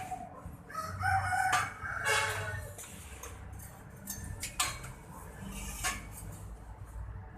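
Rooster crowing once, with a few sharp knocks around it.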